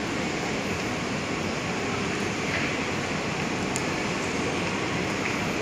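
Steady, even background noise of a large station hall, with no distinct events standing out.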